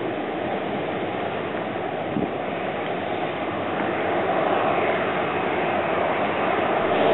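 Jet airliner engines running, a steady rushing noise with a faint whine. It grows louder about four seconds in as a Solaseed Air Boeing 737 lines up and powers up for takeoff.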